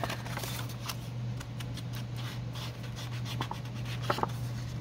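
Round foam ink-blending tool rubbed and dabbed along the edge of a sheet of paper: a run of short, irregular, scratchy brushing strokes over a steady low hum.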